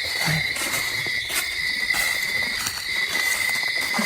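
Night insect chorus of crickets: a steady, even high-pitched trill. A few faint clicks or rustles sound over it.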